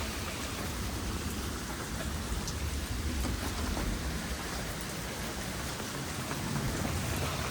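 Steady rain falling during a thunderstorm, an even hiss with a low rumble beneath it that eases off about six seconds in.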